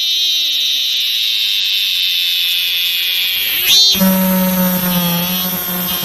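Cicada calling: a loud, steady, high-pitched buzz for nearly four seconds, then after a brief swooping sound it shifts to a lower, droning call.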